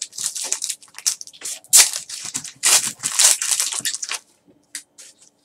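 Plastic-foil trading card pack wrapper being torn open and crinkled in the hands, a dense crackle for about four seconds. A few faint ticks follow near the end.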